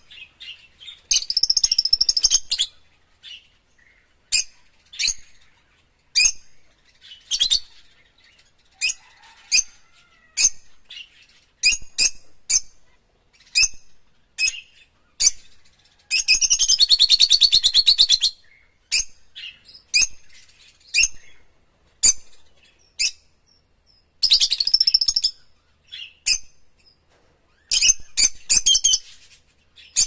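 Rosy-faced lovebirds calling: short, high-pitched chirps repeated about every second, broken four times by longer runs of rapid chattering calls lasting one to two seconds.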